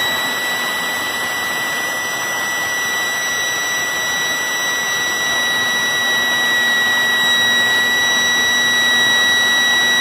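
Red electric motor-driven siren running at full speed, holding one steady high pitch over a rushing hiss. It is set off by a sump pump monitor's leak-sensor alarm, standing in for a failed sump pump.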